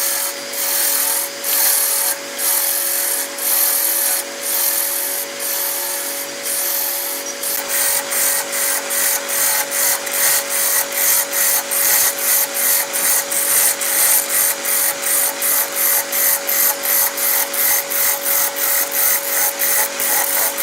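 Wood being worked on a hand-built lathe, with a tool scraping the turning piece in rhythmic strokes over a steady hum. The strokes come about once a second, then quicken to two or three a second about seven seconds in.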